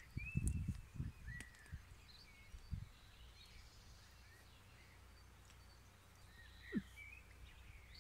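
Birds chirping on and off, with a few soft low thumps, clustered in the first second and again near 3 s and 7 s.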